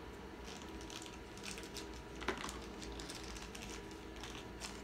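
Small plastic blind-bag packet being snipped with scissors and handled: faint scattered crinkles and light clicks, with one sharper click about two seconds in.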